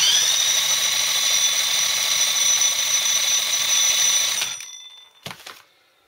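Cordless drill spinning a Honda CBF125 engine over at high speed by its flywheel nut: a steady high whine that cuts off a little after four seconds in, then a single click. With the clutch basket off and the gearbox disconnected, the engine turns over without the knock, pointing to the gearbox as the source of the knock.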